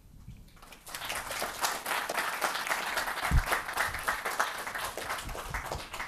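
Audience applauding, starting just under a second in and thinning out near the end, with a single low thump about halfway through.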